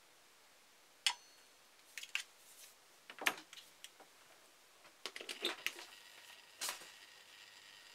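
Hard clicks and knocks of a resin ashtray being set down and shifted on a turntable's metal plate, several separate clinks about a second apart. A faint steady hum starts about six seconds in.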